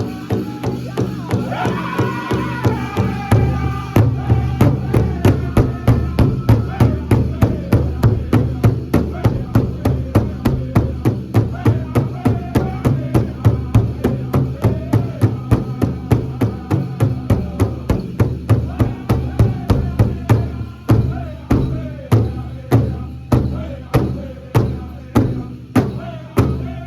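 Powwow drum group singing a men's chicken dance song: a chorus of high-pitched voices over a steady, evenly paced beat on a large shared drum.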